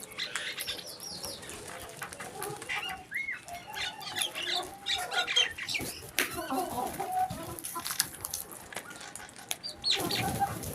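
A flock of crows calling, many short caws and squawks overlapping one another, with scattered sharp clicks among them.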